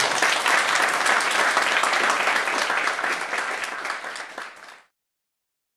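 Audience applauding, the clapping loudest at first and thinning and fading until it cuts off abruptly a little under five seconds in.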